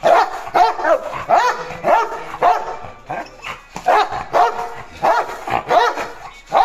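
Red-nose pit bull barking repeatedly, about two barks a second, with a short pause about halfway through.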